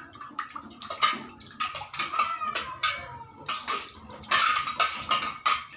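A hand swishing water around in a stainless steel bowl: irregular splashing with knocks against the metal, loudest for a stretch a little past the middle.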